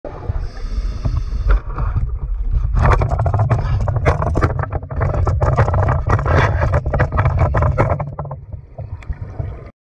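Muffled underwater sound heard through a camera housing on a spear: a steady low water rumble, then a dense run of clicks, knocks and scraping from about three seconds in as a shark bumps and mouths the spear and camera. The sound cuts off abruptly near the end.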